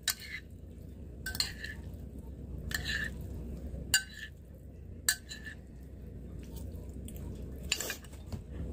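Metal spoon and fork clinking against a ceramic dish while food is stirred and mixed, several sharp clinks a second or so apart. A steady low hum runs underneath.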